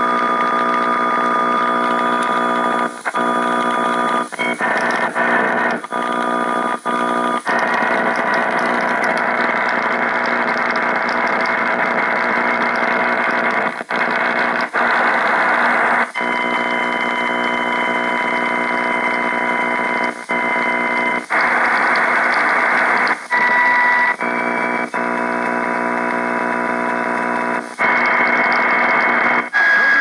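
AM radio on an odd signal: a loud buzzing noise with a stack of steady whistling tones over it. It cuts out for an instant many times, and the higher whistle tones change pitch at some of these breaks.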